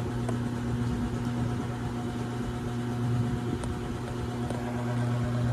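A steady low mechanical hum at an even pitch, with a few faint ticks.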